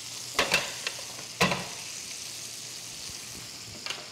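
Porterhouse steak sizzling in melted butter and rosemary in a hot pan as it is basted. A few sharp clinks of a metal utensil against the pan come early, three within the first second and a half, and one more near the end.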